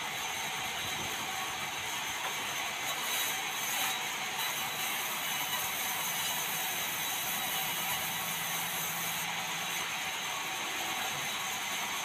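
Sawmill saw machine running with a steady, even noise while red meranti planks are fed through it.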